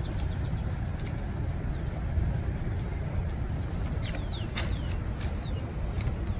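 Birds calling with short high chirps and falling whistles: a quick run of notes at the start and another cluster around the middle. A steady low rumble runs underneath.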